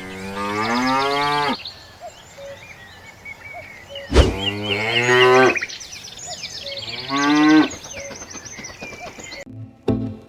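A cow mooing three times in long drawn-out calls, with a sharp click just before the second moo. Plucked-string music starts near the end.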